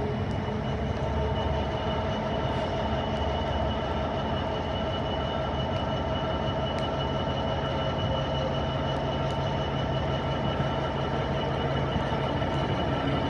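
Passenger train at the station platform: a steady low rumble with a steady high whine over it.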